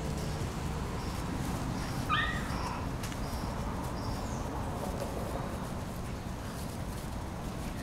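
Rhodesian ridgeback puppies play-fighting on grass, with one short, high-pitched squeal that falls in pitch about two seconds in.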